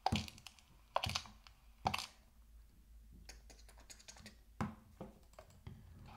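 Light clicking and tapping of small plastic toys being handled: three sharper clicks in the first two seconds, then a run of fainter ones with one firmer tap near the end.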